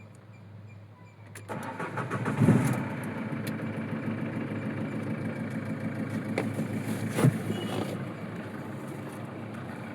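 Nissan Evalia's 1.5 dCi diesel engine cranking and starting about a second and a half in, then running at idle. The engine has a complaint of white smoke and a misfire.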